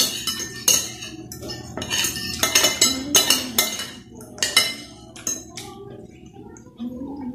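Metal spoon and fork scraping and clinking against a glass plate, gathering up the last of the rice. The strokes come thick and fast for the first few seconds, then thin out.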